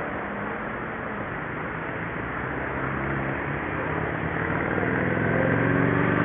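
City street traffic: a steady rush of vehicles, with an engine growing louder and rising slightly in pitch over the last few seconds.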